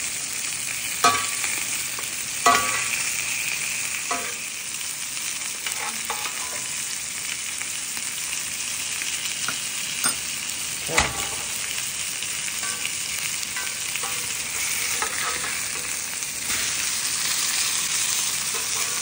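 Pacific halibut fillets sizzling steadily in butter in a hot pan during a hard sear, with a few sharp clinks against the pan as they are basted.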